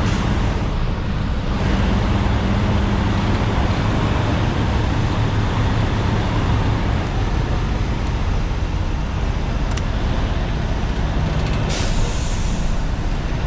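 Semi-truck's diesel engine running steadily at low speed while the truck is reversed into a parking space, with a short burst of air hiss near the end.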